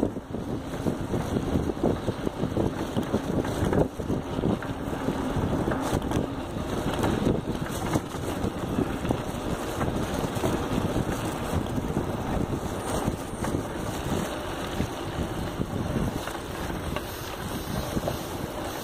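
Bicycle rattling and jolting over a bumpy dirt trail, picked up from the handlebars, with a steady scatter of small knocks and wind buffeting the microphone.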